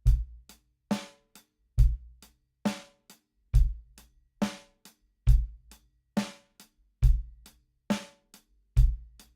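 Drum kit played in a slow, steady groove: bass drum and snare alternate about once a second, with light hi-hat ticks between. The snare's ring dies away quickly.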